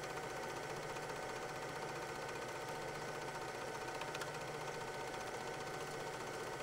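8 mm film projector running, a steady mechanical whirr and clatter with a constant hum.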